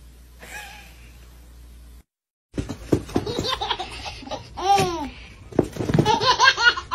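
A baby laughing hard in a string of high, gliding bursts of belly laughter. It starts after a short silence about two and a half seconds in and grows loudest near the end.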